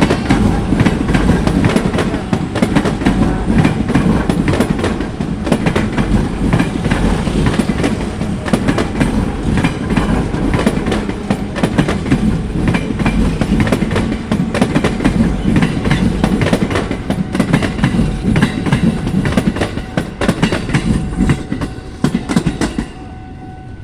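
Train passing close by, its wheels clattering over the rail joints in a dense run of clicks. It fades over the last few seconds and falls away sharply near the end.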